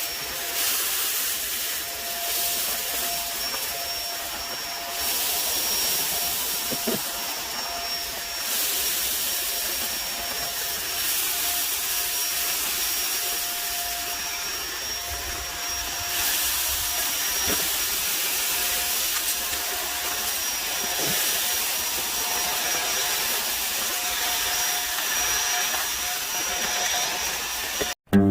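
Vacuum cleaner running steadily, a loud rushing airflow with a steady motor whine and a thin high-pitched whine over it, cutting off abruptly at the very end.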